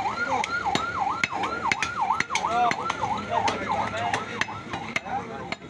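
A fast-warbling siren wails, its pitch sweeping down and back up about three times a second, over irregular sharp knocks of a butcher's cleaver striking meat on a wooden log chopping block.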